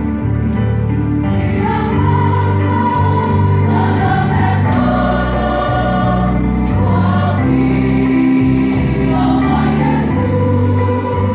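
Youth choir of many voices singing in harmony, holding long notes.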